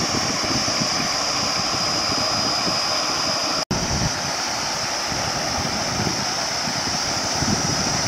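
Steady rush of water spilling over a small stone weir into a stream, cut off for an instant a few seconds in.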